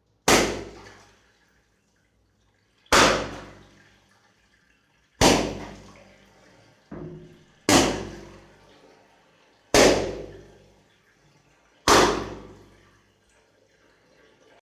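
Water-filled balloons bursting one after another: six sharp pops about two seconds apart, each followed by a short splash of water that dies away, with a smaller pop between the third and fourth.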